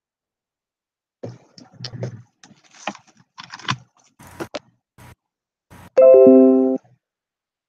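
Crackles, rattles and sharp clicks of a plug being pushed into a computer's audio jack, then about six seconds in a loud, short chime of a few falling tones.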